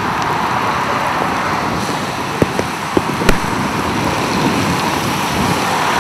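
Steady rushing noise of wind and rain, with traffic passing on a wet highway. A few sharp knocks come about halfway through.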